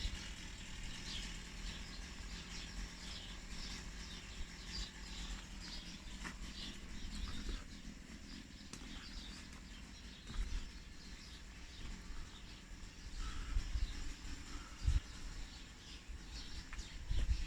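Small birds chirping and twittering throughout, over a low outdoor rumble with a few soft low thumps.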